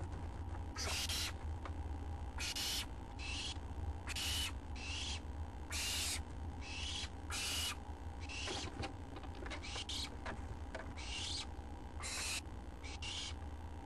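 Owlets giving repeated hissing begging calls, short bursts of hiss about one a second. A steady low hum runs underneath.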